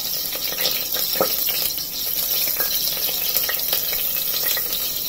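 Hot oil sizzling in a steel pot as onion slices, dried red chillies, seeds and curry leaves fry for a tempering (tadka), with a steady hiss and frequent small crackles and pops.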